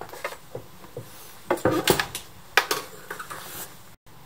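A few sharp knocks and clatters as an RC boat hull with its brass stuffing tube is handled on a workbench, the loudest a cluster around two seconds in and a single knock just after.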